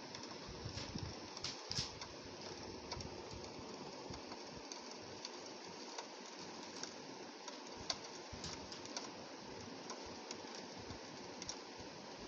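Steady rain hissing against window glass, with frequent irregular ticks of individual drops striking the pane.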